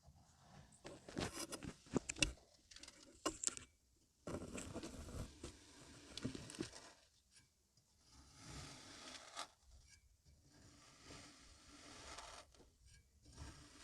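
Kinetic sand being cut: a run of crunchy, scraping strokes lasting a second or two each, with sharp crackles in the first few seconds.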